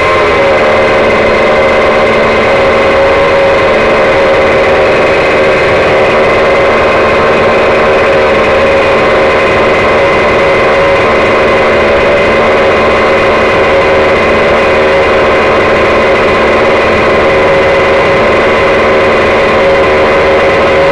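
K&B .91 two-stroke glow engine spinning a Byrojet ducted fan, running loud and steady at one speed through its tuned pipe.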